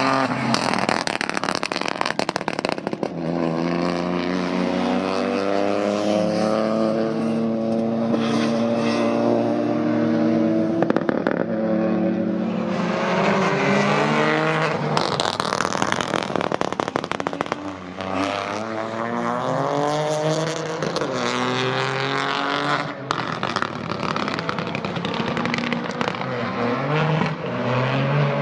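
Peugeot 208 Rally 4's turbocharged 1.2-litre three-cylinder engine at racing speed, its pitch climbing and dropping several times through gear changes and lifts. Sharp crackles and pops from the anti-lag system break through the engine note now and then.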